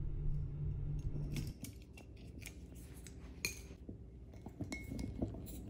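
Metal corkscrew being worked into a wine bottle's cork: a string of small metallic clicks and scrapes, with one sharper click about three and a half seconds in. A low steady hum cuts out about a second and a half in.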